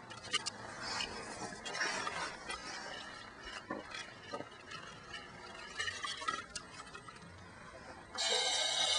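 Close-up textured sounds: scattered clicks and rustling with light clinks, then a short, louder hissing rush about eight seconds in.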